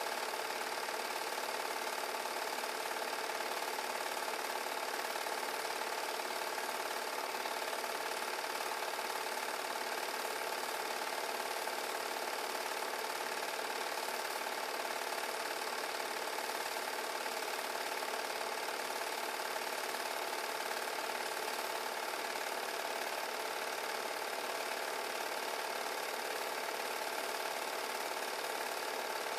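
8 mm home-movie film projector running: a steady mechanical whir that does not change.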